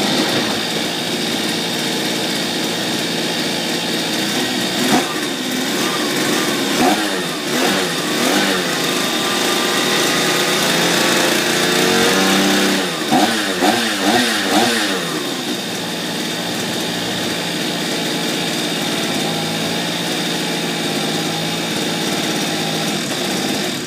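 Small engine of a radio-controlled model boat running on a test run, mostly at a steady fast idle with a thin high whine over it. It is revved up and down in short blips twice, around a third of the way in and again just past halfway, then cuts off abruptly at the very end.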